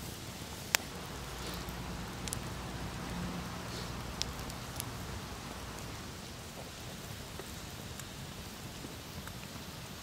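Split firewood burning in an open campfire: a steady hiss of flames with sharp crackles and pops from the logs, the loudest pop about a second in.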